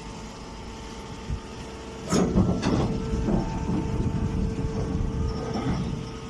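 Hay and grass baler machine running with a steady hum. About two seconds in it breaks into about four seconds of louder, irregular mechanical clattering and knocking, then settles back to the hum.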